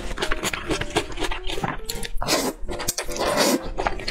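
Close-miked eating of thick noodles in spicy broth: a run of short wet chewing smacks, with longer slurps about halfway through and again near the end.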